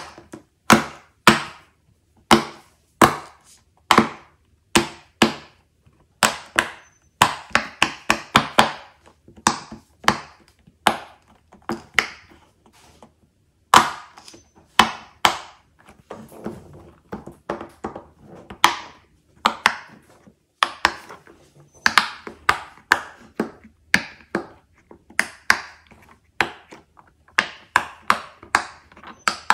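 Silicone pop-it fidget toy bubbles pressed by hand one after another, each giving a short sharp pop. The pops come unevenly, a few a second, sometimes in quick runs.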